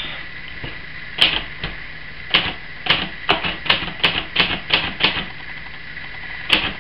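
Keys struck one at a time on a 1963 Hermes 3000 manual portable typewriter, in an uneven hunt-and-peck rhythm: a few scattered strikes, then a run of about three a second, a pause, and strikes resuming near the end.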